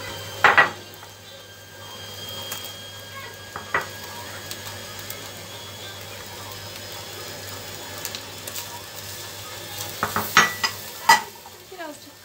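Lamb pieces and chopped peppers sizzling in a hot pan. A silicone spatula knocks sharply against the bowl and pan a second in and again around four seconds, and a quick run of clattering knocks near the end as the mixture is stirred.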